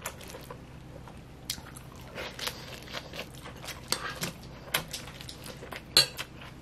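Light handling sounds of a lettuce wrap being made: a metal spoon clinking in a ceramic bowl of jjajang rice and lettuce leaves crinkling, as scattered soft clicks with one sharper click near the end.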